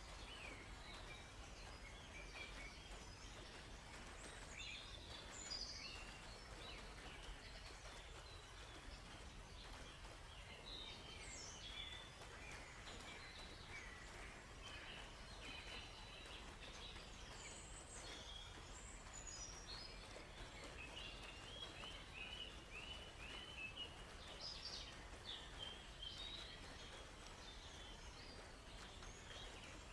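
Several small songbirds chirping and calling, faint, with short high notes scattered throughout and a quick run of repeated notes about twenty-two seconds in, over a steady low background hiss.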